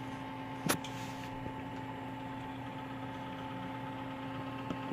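3D printer running: a steady hum with a few steady whining tones from its motors and fans, and a single sharp click under a second in.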